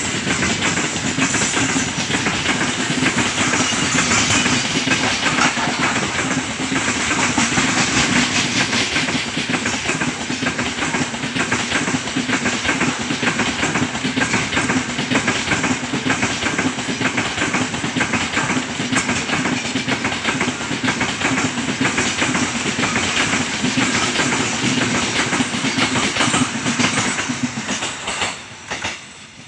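Freight train of open gondola wagons passing fast and close: steel wheels clattering over the rail joints with a steady rumble. The sound falls away quickly near the end as the last wagons go by.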